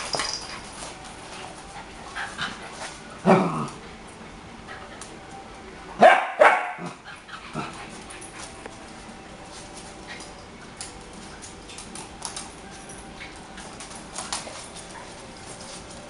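Small dogs barking and yipping while they play-fight. A few short barks stand out: one falling bark about three seconds in and the loudest pair about six seconds in, with quieter yips in between.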